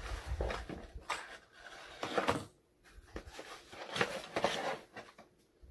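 Packaging being rustled and handled as items are taken out of a mailed package, in about four short bursts with small clicks between.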